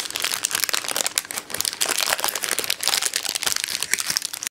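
Sheet of baking paper crinkling as it is unfolded and peeled open from a baked cheesecake cube, a dense run of small crackles.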